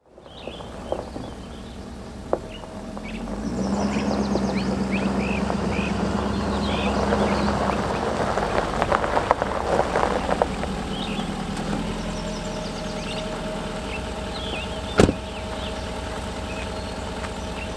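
Ford Super Duty pickup truck driving slowly onto a gravel lot, its engine running and its tyres crunching over the gravel as it pulls up. The engine stops, and a truck door shuts about fifteen seconds in. Birds chirp in the background.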